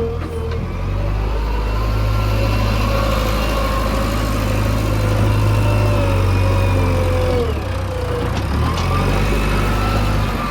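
Diesel engine of heavy earthmoving machinery running steadily, with a higher whine over it that wavers and dips in pitch a little over two-thirds of the way through.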